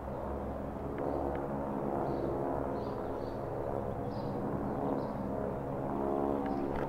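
North American AT-6 Texan trainers' radial piston engines droning overhead as the formation passes, a steady many-toned hum whose pitch drifts slowly.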